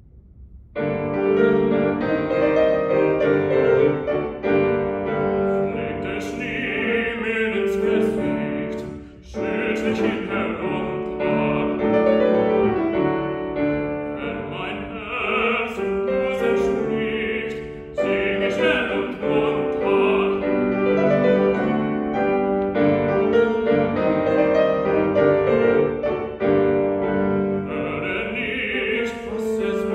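Grand piano starts an introduction about a second in, and a male classical voice enters around six seconds in, singing an art song with full piano accompaniment, with short breaths between phrases.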